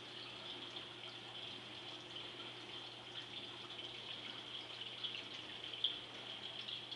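Saltwater aquarium's circulating water: steady trickling and splashing with small crackles, over a low steady hum.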